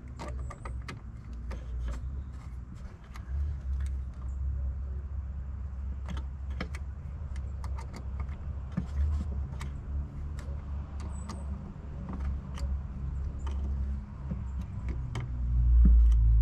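A car engine running nearby with a steady low rumble that swells into a louder low growl near the end. Light metallic clicks and taps of hand tools and small parts come and go over it.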